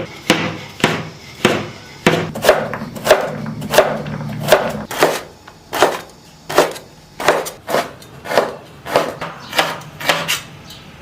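Kitchen knife chopping ingredients into dice on a cutting board: sharp, irregular knocks at about two a second.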